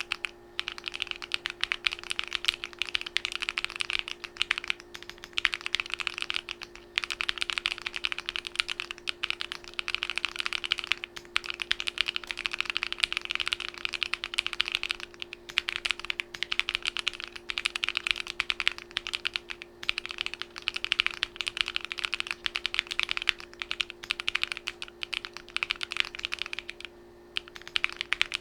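Fast, continuous typing on a hand-built Alice-layout mechanical keyboard, a dense stream of key clicks with a few short pauses. A steady low hum runs underneath.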